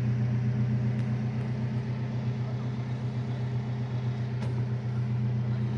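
Alfa Romeo 4C Spider's 1.75-litre turbocharged four-cylinder idling steadily: an even, low hum.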